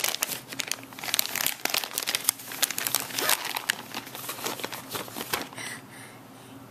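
Dense, irregular crinkly rustling and crackling that dies away about five and a half seconds in.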